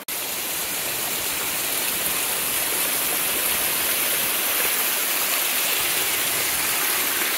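Small mountain-creek waterfall: water splashing and cascading over rocks in a steady rush.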